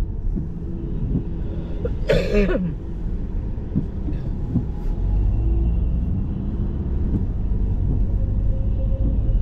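Low, steady road and engine rumble heard inside a moving car's cabin. It grows a little louder about five seconds in. A single short vocal sound comes about two seconds in.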